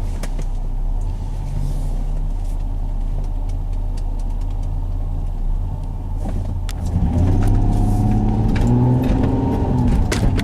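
Car engine heard from inside the cabin, running low and steady, then pulling away and accelerating from about seven seconds in with its pitch rising. Occasional short knocks come from the camera rig jostling as the car moves.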